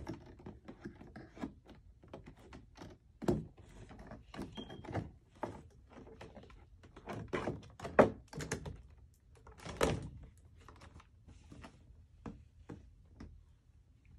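A cardboard toy box with a clear plastic window being handled and opened: irregular knocks, taps and crinkles, with sharper thunks a few times, the loudest about eight seconds in.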